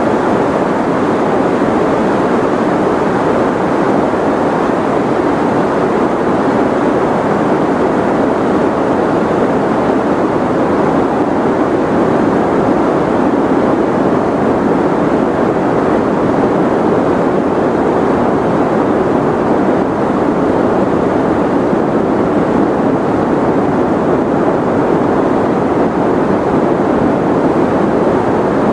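Steady, unchanging white-noise sleep track: an even rushing hiss, loud, with more weight in the lower-middle range than at the top.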